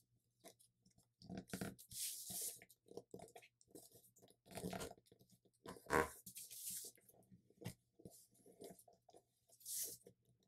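Sheet of US Letter paper being flipped, pressed and creased by hand: faint, intermittent rustling and crinkling, with louder crinkles about two, five, six and ten seconds in.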